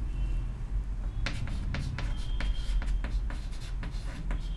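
Chalk writing on a chalkboard: a run of short scratchy strokes and taps, starting about a second in.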